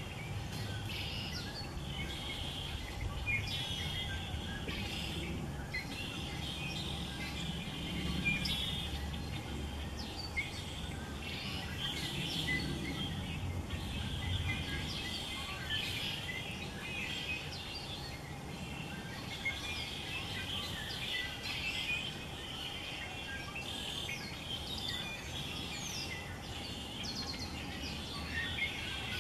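Small songbirds chirping and twittering busily over a low, steady rumble.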